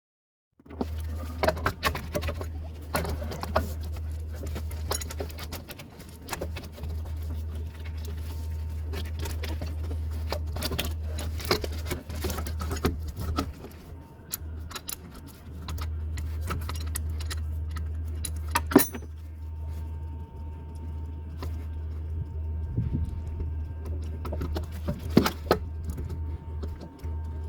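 Irregular metallic clinks and rattles of hand tools and metal parts, over a steady low hum.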